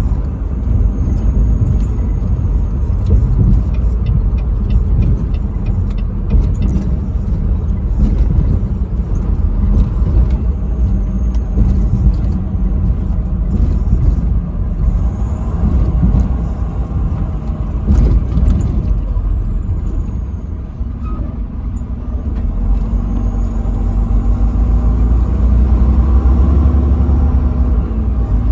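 Truck driving on the interstate: a steady low engine and road rumble that dips briefly, then grows louder over the last few seconds.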